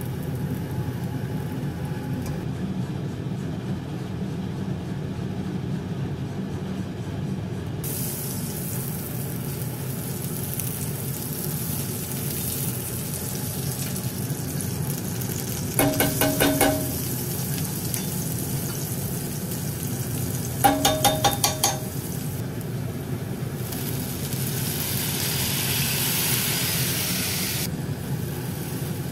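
Butter, onions and garlic sizzling in a hot black frying pan. Twice, about 16 and 21 seconds in, a short burst of rapid clicking from a gas stove's igniter.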